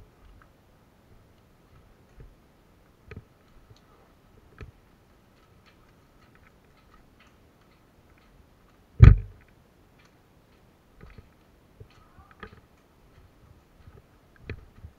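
Scattered light clicks and knocks, a few seconds apart, with one loud thump about nine seconds in.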